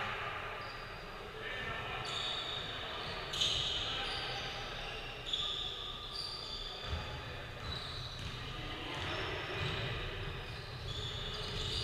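Basketball game sounds in a gym: the ball bouncing on the hardwood court with a few sharper knocks, short high sneaker squeaks, and distant voices carrying in the large hall.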